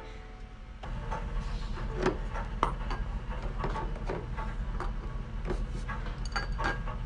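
Eggs being taken from a cardboard box and set into a ceramic bowl: light clicks and knocks of shell against ceramic, with cardboard rustling, over a steady low hum.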